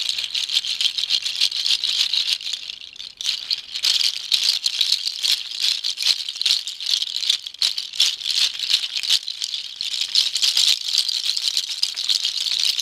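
Deer-toe rattle, dried and hollowed deer hooves strung along a horse rib, shaken steadily: a dense clatter of many hooves knocking together, with a short lull about three seconds in.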